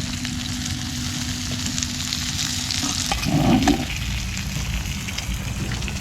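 Food frying and sizzling in a pan over a campfire, a steady crackle, with a brief louder low sound a little past halfway.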